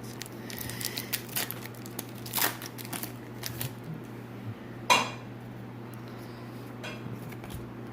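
Trading cards and their foil pack wrapper being handled: scattered small clicks and rustles, with one sharp ringing clink about five seconds in, over a steady low hum.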